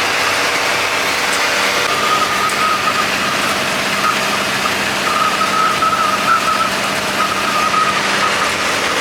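Converted school bus with its engine running: a steady, loud engine and vehicle noise with a low hum, and a high whine that wavers in and out through the middle.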